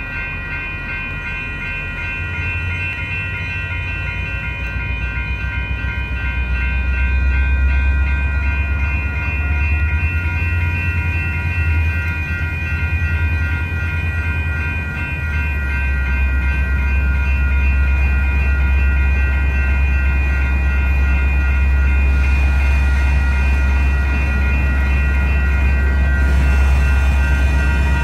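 Electronic railroad crossing bells ringing steadily over the deep rumble of diesel freight locomotives running nearby, the rumble growing louder about six seconds in.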